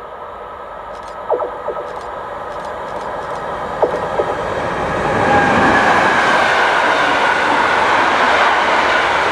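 Electric-hauled intermodal freight train rolling past on its pocket wagons loaded with semi-trailers, headed by a BR 189 locomotive. The steady rolling noise grows louder as the train approaches and holds at full level from about five seconds in. A few short sharp sounds come in the first four seconds.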